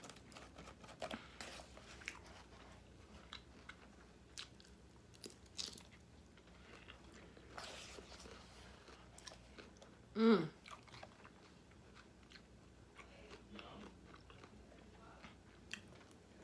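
Close-miked chewing and crunching of a chicken, bacon and avocado salad: scattered mouth clicks and crunches between bites. About ten seconds in comes one short vocal sound that falls in pitch.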